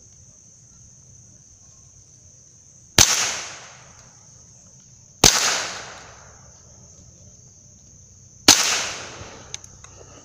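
Three single shots from a Marlin Model 60 .22 LR semi-automatic rifle, about three, five and eight and a half seconds in, each a sharp crack with a short echo trailing off through the woods: a three-shot group fired to sight the rifle in. A steady high insect drone runs underneath.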